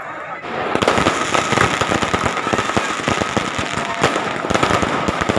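Fireworks crackling: a dense, rapid run of pops and crackles starts about half a second in and carries on without a break.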